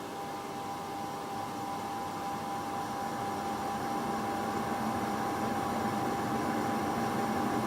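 Several ceiling fans speeding up from off to high, whirring with a steady motor hum that grows gradually louder.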